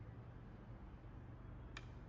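Quiet room tone with a low steady hum, and one sharp click near the end from a laptop being worked by hand.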